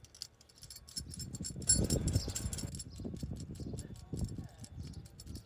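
Steel U-bolt exhaust clamp clinking and jangling, its saddle and nuts rattling on the bolt as gloved hands handle it. Many quick metallic clicks, busiest and loudest about two seconds in.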